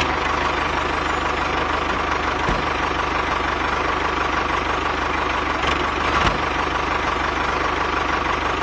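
Tractor engine running steadily at idle, an even low rumble with a faint steady whine.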